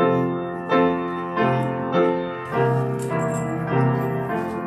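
Piano music begins abruptly, slow chords with sustained notes struck about once a second.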